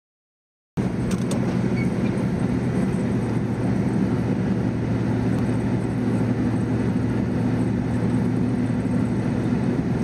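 Plow truck driving on a snow-covered road, heard from inside the cab: a steady engine and road drone that starts just under a second in.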